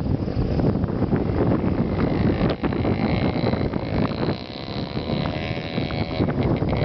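Small 90 cc Dinli ATV engine running as the quad rides by, largely covered by wind buffeting on the microphone; its engine note climbs in the second half as it speeds up.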